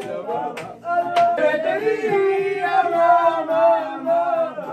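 Male voice singing a slow, wavering melody with long held notes, with two sharp hits in the first second and a half.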